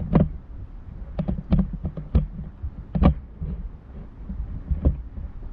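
Irregular sharp taps, about a dozen, over a low rumbling wind noise on the microphone.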